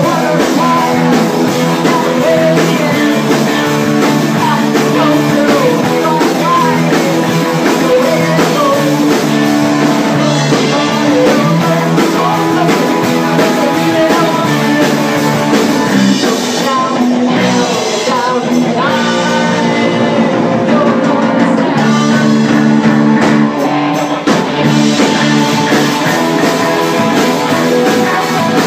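A band playing a rock song live, with guitar, drums and singing.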